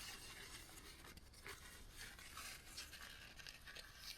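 Faint rubbing and wiping while cleaning around the oil fill plug on an ATV engine, with a few light scuffs.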